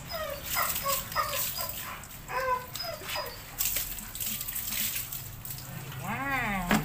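Belgian Malinois puppy whimpering in a string of short, high cries while rinse water is poured over it from a pail and splashes. A longer wavering cry comes near the end.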